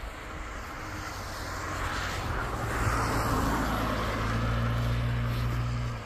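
A car passing on a wet road, its tyre hiss swelling to a peak about three seconds in, over a steady low engine hum that stops suddenly near the end.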